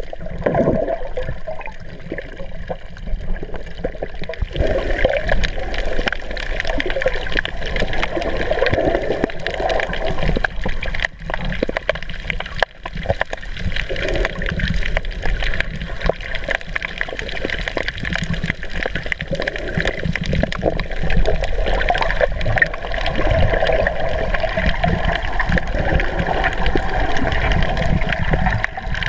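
Muffled gurgling and sloshing of water around a camera's waterproof housing underwater, with small crackles throughout. It grows louder about four seconds in.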